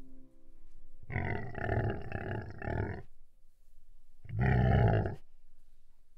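Elephant sound effect: a low, rough call lasting about two seconds, then a shorter one about a second later.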